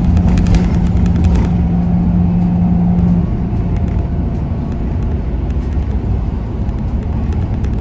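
Bus engine and road noise heard from inside the cabin: a steady low rumble, with a steady low hum over it that stops about three seconds in.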